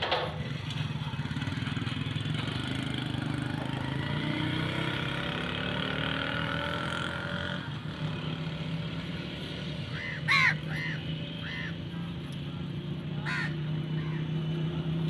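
Steady low hum of a running motor vehicle engine, with a quick series of three short arched calls about ten seconds in.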